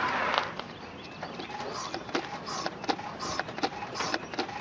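Repeated clicking from the front suspension or steering of a 2003 Chevy Impala, about two to three sharp clicks a second, after a short rushing noise at the start. The owner doubts, without being sure, that the intermediate shaft is the cause.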